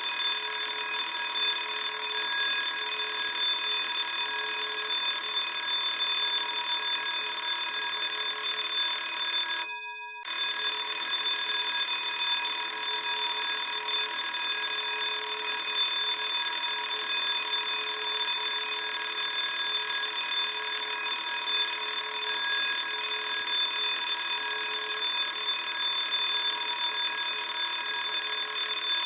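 Classic electric school bell ringing steadily. About ten seconds in it dies away briefly, then starts ringing again abruptly.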